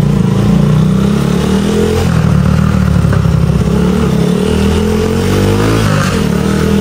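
Motorcycle engine running under way, the revs climbing twice and dropping back each time, as with throttle and gear changes.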